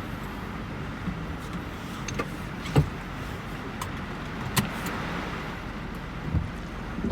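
Steady vehicle running noise with a few sharp clicks and knocks over it, the loudest about three seconds in.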